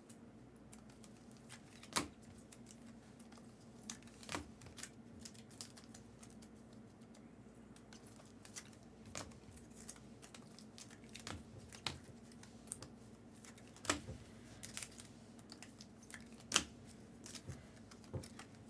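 Trading cards being handled on a table: faint, scattered clicks and taps as cards and their holders are picked up, slid and set down, over a faint steady hum.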